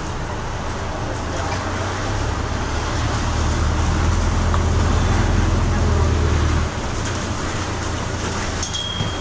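Interior noise of a hybrid double-decker bus under way: a low drive hum over tyre and road noise on a wet road. The hum builds from about two seconds in and drops away abruptly near seven seconds. A short high tone with a click comes near the end.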